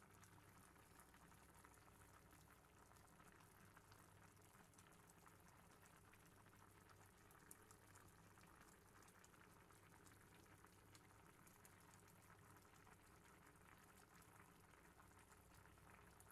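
Faint, steady bubbling of curry laksa broth simmering in a wide pot, small bubbles popping as it finishes cooking, over a low steady hum.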